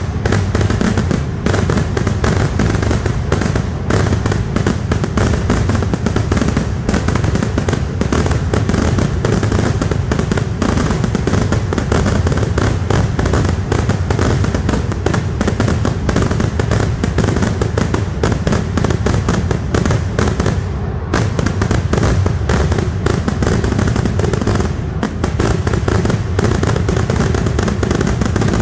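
Kerala temple fireworks (vedikettu) barrage: a dense, continuous volley of firecracker bangs in very rapid succession, with only brief thinning a couple of times.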